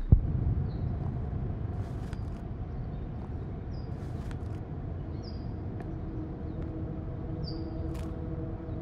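Outdoor ambience: a steady low rumble with a few short high bird chirps and scattered faint clicks, opening with a single sharp thump.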